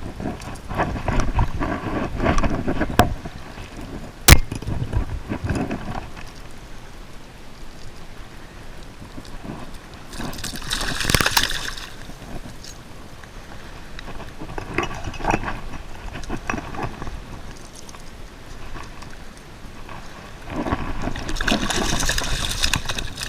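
Water splashing and sloshing, with a few sharp knocks. The loudest splashy spells come about ten seconds in and again near the end.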